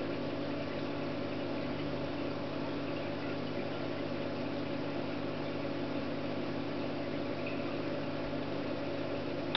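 A steady machine hum with several held low tones over an even hiss, unchanging throughout.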